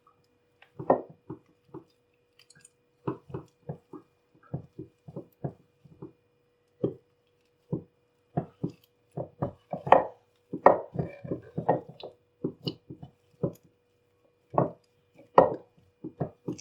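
Hands kneading soft gram-flour and rice-flour dough with butter in a bowl: irregular soft squelches and thumps, some in quick runs, over a faint steady hum.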